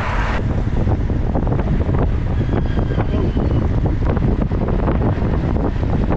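Wind buffeting the microphone of a cyclist riding at speed: a loud, steady low rumble.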